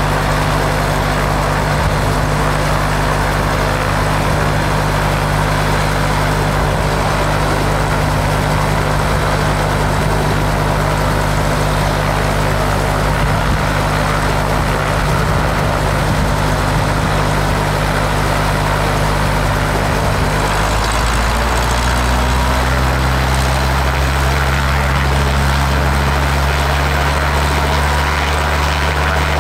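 Robinson R22 helicopter's air-cooled four-cylinder piston engine idling steadily after start-up, with the main rotor turning slowly. About 21 seconds in, the engine note changes pitch.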